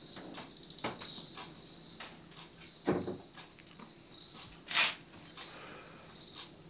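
Quiet room ambience with a faint, steady, high-pitched chirring. Over it come a soft knock about a second in, a dull thump about three seconds in, and a short hissing rustle near five seconds as a person moves past.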